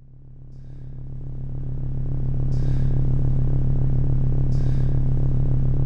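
Low synthesizer drone of a film score, fading in over the first two seconds and then holding steady, with two soft airy swishes about two seconds apart.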